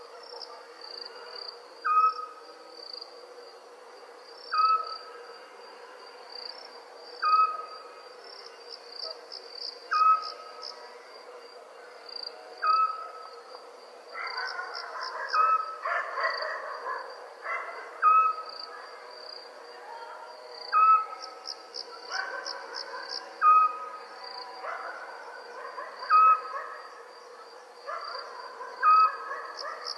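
Night ambience of crickets trilling steadily, with a short call repeated about every two and a half seconds and a steady low hum underneath.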